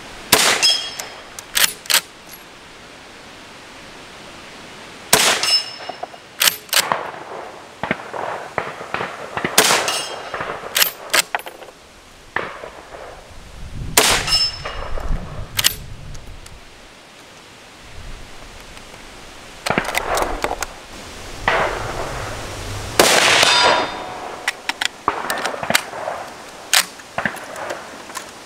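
.308 Merkel Helix straight-pull rifle fired several times, several seconds apart, each sharp shot with a short metallic ring. Smaller metallic clacks come between the shots as the straight-pull bolt is cycled.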